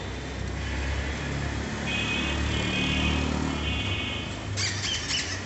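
A motor vehicle engine running with a low, steady rumble, with a short loud hiss about four and a half seconds in.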